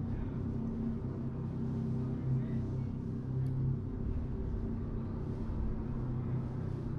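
Live music dominated by a steady, low droning bass tone, with only faint higher sounds above it.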